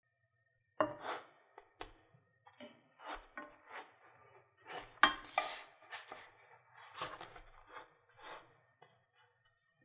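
Spatula scraping and knocking against a frying pan as a puffed flatbread is lifted and flipped over. It makes a string of short scrapes and taps, loudest about five seconds in.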